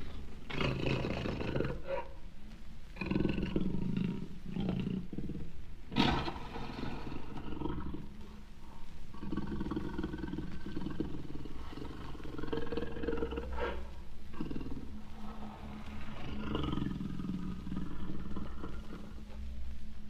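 Jaguar calling: a run of deep, rough calls, each a second or a few seconds long, with short pauses between them. A sharp click sounds about six seconds in.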